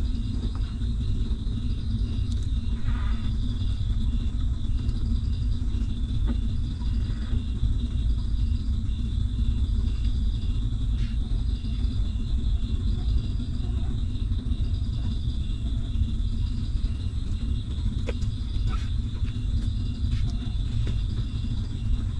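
Steady low rumble, with a high, thin insect chirring that pulses roughly once a second above it and a few faint small clicks.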